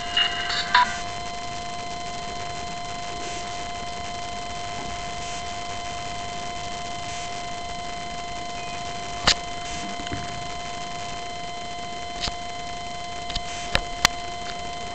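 A steady high electronic whine of several held tones, with a short cluster of faint beeps in the first second. Sharp clicks of the handset being handled come about nine seconds in and a few more near the end. No startup tune is heard while the Siemens phone boots.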